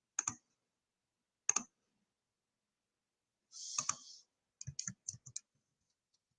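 Computer keyboard and mouse clicks: two single clicks about a second apart, then after a pause a short burst of noise and a quick run of about five clicks.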